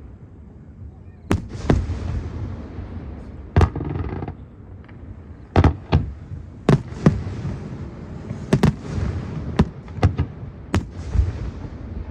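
Fireworks bursting overhead: about a dozen sharp bangs at uneven intervals, some in quick pairs, with a low rumble between them.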